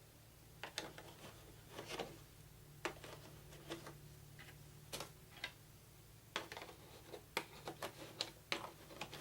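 Light plastic clicks and brief rustles from small plastic board-game miniatures and their packaging being handled, about a dozen separate faint ticks spread irregularly.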